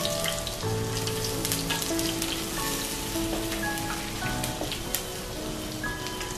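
Ground ginger, garlic and green chili paste sizzling and crackling in hot coconut oil in a clay pot, with a steady hiss full of small pops.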